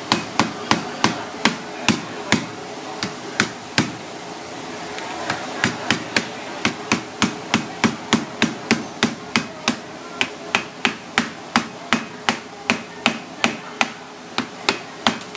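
Cleaver striking the cooked shell of a coconut crab leg over and over to crack it: sharp knocks about three a second, with a short pause a few seconds in before the rapid striking resumes.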